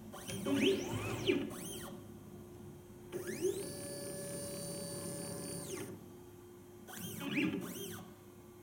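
Motors of a ColorScout A+ automated XY stage driving the spectrophotometer carriage into position: three runs of motor whine that rise in pitch as the carriage speeds up and fall as it stops. The first and last runs are short with several quick up-and-down glides. The middle one, from about three to six seconds in, holds a steady high whine.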